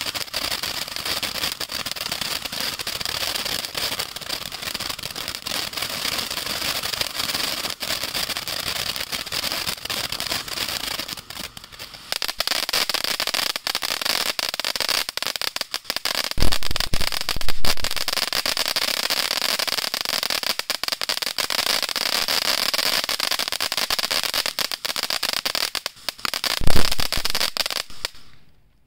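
Standard Fireworks Trickster fountain firework burning: a continuous rushing hiss of sparks thick with crackling, easing briefly about eleven seconds in. A few low thuds sound near the middle and once more near the end, and the fountain then cuts out suddenly as it burns out.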